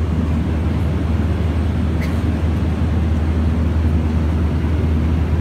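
Cabin noise of a passenger jet in flight: a steady, unbroken drone with a strong low hum.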